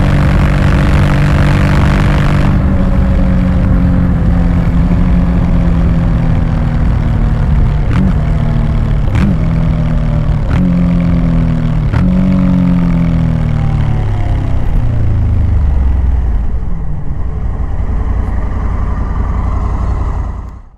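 Honda Africa Twin Adventure Sports motorcycle's 1084 cc parallel-twin engine slowing down from highway speed, with heavy wind rush that drops away after about two seconds. The engine note falls steadily and steps back up with four downshifts a second or so apart, then sinks to a low rumble as the bike comes nearly to a stop. It cuts off suddenly at the very end.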